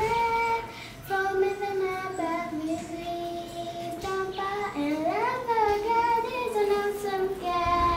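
A child singing a song solo and unaccompanied: one voice holding notes and sliding between them, with a short breath pause about a second in.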